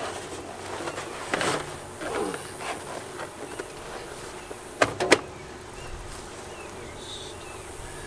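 A heavy cardboard box of baling wire being pushed and scraped into a square baler's wire compartment: rustling and scraping, then three quick sharp knocks about five seconds in.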